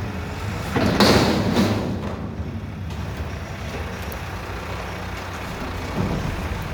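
Mack McNeilus front-loader garbage truck's diesel engine running steadily, with a short loud hiss about a second in.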